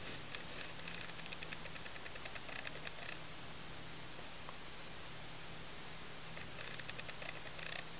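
Crickets chirping in a steady chorus: a continuous high trill with quicker pulsed chirps over it.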